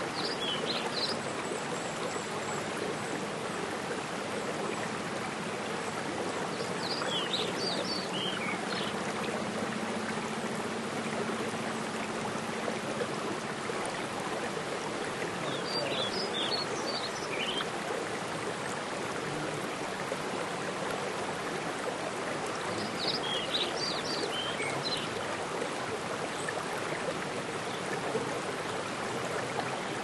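Steady running water of a rocky mountain stream and small waterfall, with rain falling on the pool. A bird sings a short phrase of high, falling notes four times, about every eight seconds.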